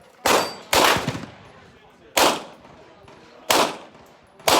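Five gunshots at uneven intervals, two close together near the start, each followed by a short fading echo.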